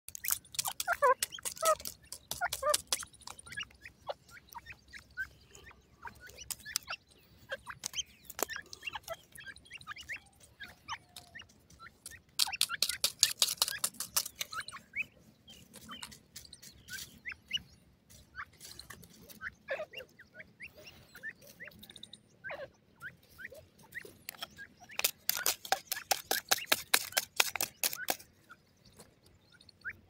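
Grey francolins pecking and scratching in dry dirt and gravel: bursts of rapid sharp clicks and scrapes, three times, with scattered single pecks between and soft short chirps among them.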